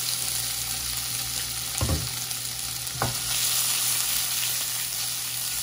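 Cut-up chicken breast sizzling steadily in hot oil in a pan, with a couple of short knocks about two and three seconds in.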